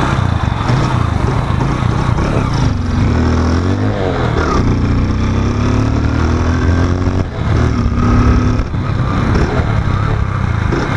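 Motorcycle engine running under way while riding, its revs rising and falling a few times.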